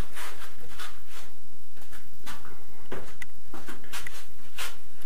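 Handling and walking noise: a string of short knocks and scuffs as a ceramic tile is lifted from a stack and carried across a bare concrete room.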